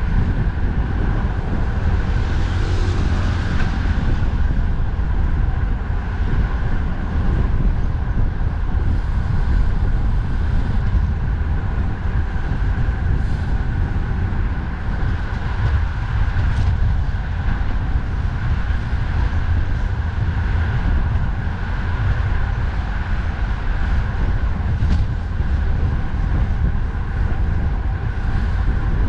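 Steady heavy rumble of wind buffeting the microphone and road traffic while riding a bicycle along a highway, with a faint steady whine running through it.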